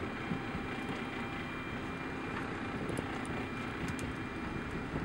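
Steady low rumble of wind and boat noise on an open boat at sea, with a few faint clicks.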